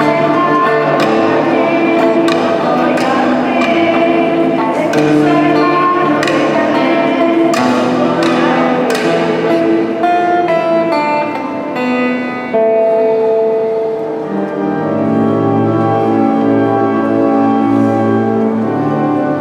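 Group singing of a hymn with acoustic guitars, sharp percussive strikes keeping the beat. About twelve seconds in the sound changes abruptly to slower, held chords.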